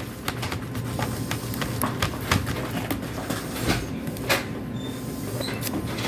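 Clear slime being stirred with a mixing tool in a bowl: irregular clicking and scraping against the bowl, over a steady low hum.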